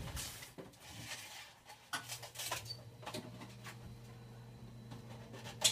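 Scattered light knocks, clicks and rustling as items are moved around inside an open refrigerator, with a sharper click near the end. A low steady hum comes in about two seconds in.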